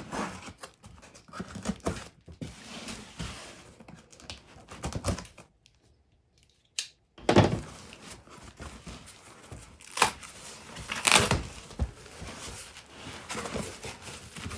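Box cutter slicing packing tape on a cardboard shipping box, then tape ripping and cardboard flaps being pulled open and bumped, with loud tearing rips about two thirds of the way through. There is a short quiet break near the middle.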